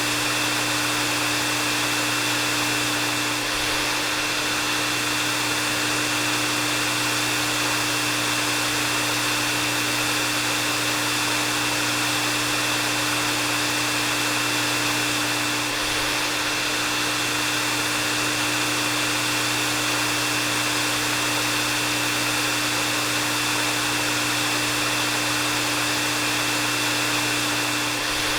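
Hair dryer running steadily: a continuous rush of blown air with a low motor hum and a thin high whine.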